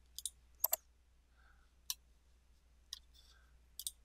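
Computer mouse clicking, about eight sharp clicks spread over the few seconds, several coming in quick pairs like double-clicks.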